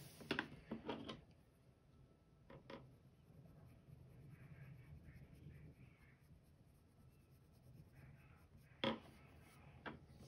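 Faint scratching of a wax-based Prismacolor coloured pencil shading on paper, broken by a few sharp taps and clicks: a cluster in the first second, one at about two and a half seconds, and the loudest about nine seconds in.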